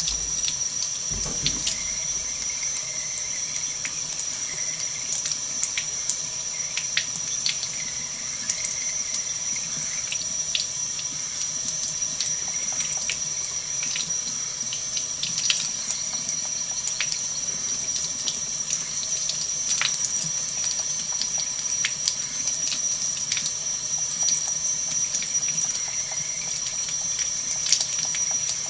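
Kitchen faucet running a thin, steady stream of water into the sink, with small irregular splashes where a cat drinks from the stream.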